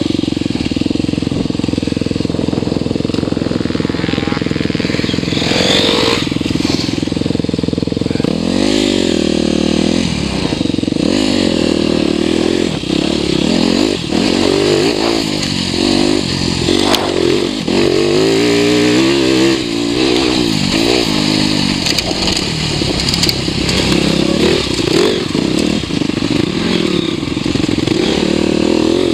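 TM 300 enduro motorcycle engine being ridden hard over a dirt enduro track. The engine holds fairly steady for the first eight seconds, then the revs rise and fall every second or two as the rider works the throttle through the turns.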